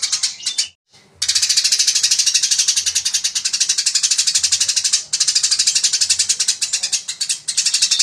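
Eurasian tree sparrow chirping in its fast, dense fighting-style song: short high chirps about ten a second. The run breaks off for half a second about a second in, with brief pauses near the middle and near the end.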